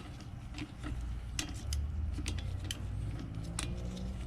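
Irregular light metallic clicks and clinks of a socket wrench being worked on a pit bike engine's spark plug, over a low steady hum.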